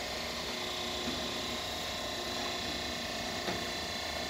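Steady hum of running machinery and electrics in a parallel-rack refrigeration motor room, with a faint click about three and a half seconds in.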